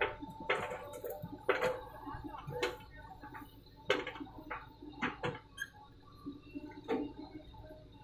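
Irregular sharp knocks and clanks as soil and clods from a JCB 3DX backhoe bucket drop into a steel tractor trolley. A faint low rumble runs underneath.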